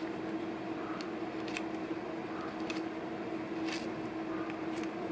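Aldabra giant tortoise biting and chewing a leaf: a handful of short, crisp crunches about a second apart, over a steady low hum in the background.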